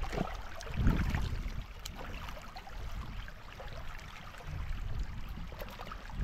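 Shallow stream water rippling and splashing around rocks as they are shifted by hand in the streambed, with scattered small ticks and two low rumbles, about a second in and again near the five-second mark.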